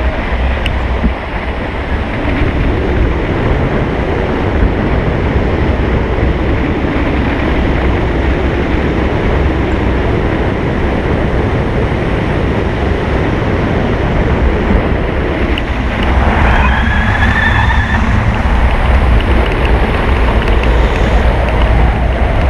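Steady wind rushing over the microphone of a camera mounted on a hang glider's wing as it glides low over the surf and down toward the beach to land. About two-thirds of the way in the wind grows a little louder and a brief rising whistle sounds over it.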